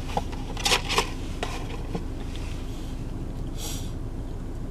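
Eating sounds: a few short crisp clicks and smacks of food being handled and chewed in the first second and a half, then a brief rustle about three and a half seconds in, over a steady low hum inside the car.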